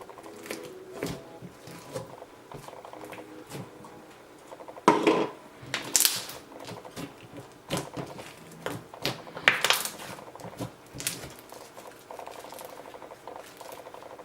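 Slime mixed with floam beads being squished and poked, giving irregular crackling clicks and pops, loudest about five, six and nine and a half seconds in.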